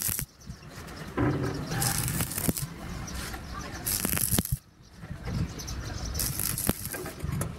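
Stick-welding arc crackling and hissing against the steel of a loader bucket, in three bursts of about a second each with short breaks between as the arc is struck and broken.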